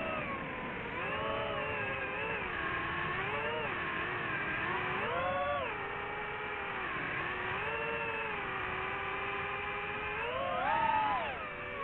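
DJI FPV drone's motors and propellers whining, the pitch rising and falling repeatedly as the motors speed up and slow down, climbing highest near the end.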